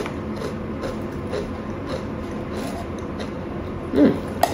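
Someone chewing potato chips: soft, irregular crunches a few times a second, with a brief closed-mouth "mm" near the end.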